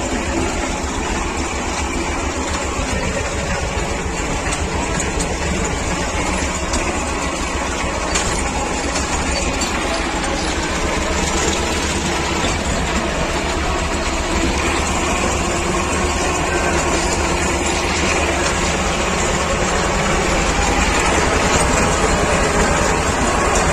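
Two-cylinder air-cooled diesel of a T-25 Vladimirets tractor running steadily under load while driving and mowing in third gear. It gets a little louder near the end.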